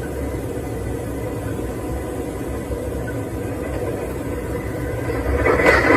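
A motor vehicle's engine running steadily with a low rumble, joined near the end by a louder, noisy burst.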